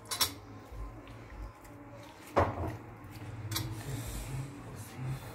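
A spoon knocking and scraping against a plate while spices and yogurt are mixed into meat: a few light clicks near the start and one sharp knock about two and a half seconds in, over a low hum.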